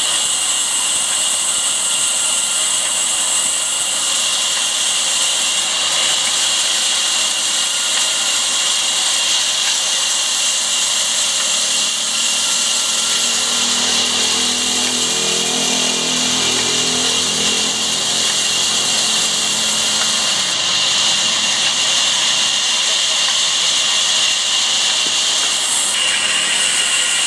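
Large vertical band saw running and ripping lengthwise through a heavy timber beam, a steady high-pitched noise from the blade cutting the wood. The sound changes abruptly near the end.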